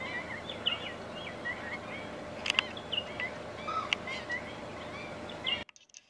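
A flock of black-winged stilts calling, many short sharp notes overlapping into a steady chorus, with a couple of louder notes in the middle. The sound cuts out suddenly just before the end.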